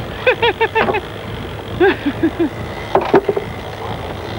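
Sport-fishing boat's engine running under steady wind and water noise, with quick runs of short shouts from the crew and a sharp knock about three seconds in.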